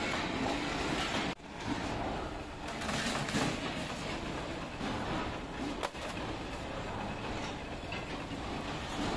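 Metalworking machinery in a utensil workshop running with a steady mechanical din, with one sharp metallic click about six seconds in.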